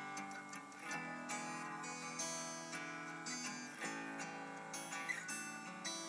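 Background music: strummed acoustic guitar.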